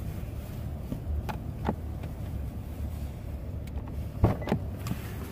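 Low steady rumble, with a few short soft knocks about a second in and twice more near the end.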